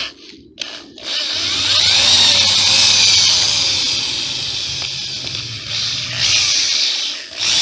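Electric drill boring out a mount-bolt hole in a 66/80cc bicycle engine's cast case, enlarging it for tapping to M8. A brief blip of the trigger about half a second in, then a steady high whir from about a second in, easing briefly around six seconds and stopping near the end.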